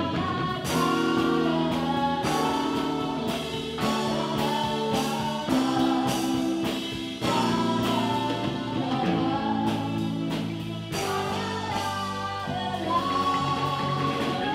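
Live funk band playing, with a woman singing lead over electric bass and drum kit.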